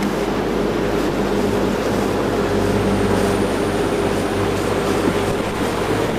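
Runabout motorboat's engine running steadily while under way, with water and wind rushing past the hull.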